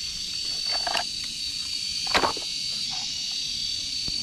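Insects shrill steadily at one high pitch, with two short clattering knocks of plastic toy vehicles being picked up and handled, the louder one about two seconds in.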